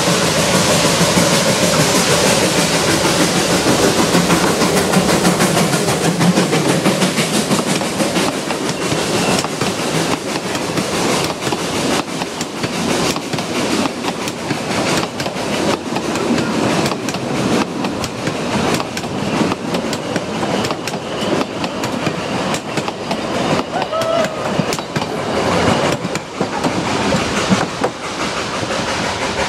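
Narrow-gauge steam train passing close by: the locomotive's steam exhaust and hiss, with a whistle note dying away in the first seconds, then the carriages rolling past with a steady run of wheel clicks over the rail joints.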